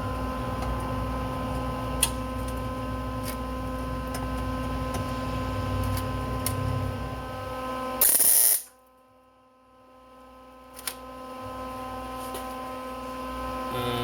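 Steady electrical hum with a few light clicks, then about eight seconds in a single loud crackling hiss of a welding arc, about half a second long: a tack weld on a sheet-steel chainsaw exhaust chamber.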